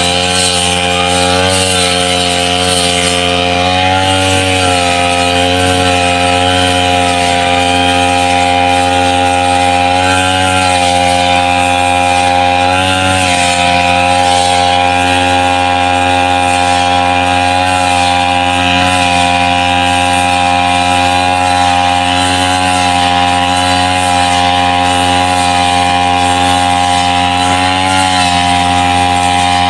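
Backpack brush cutter's petrol engine running at high speed while cutting tall, wet grass. Its pitch dips briefly now and then as the cutting head bites into the grass.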